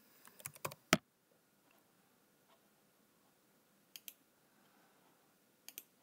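Computer keyboard and mouse clicks: a quick run of keystrokes in the first second, then a pair of clicks about four seconds in and another near the end.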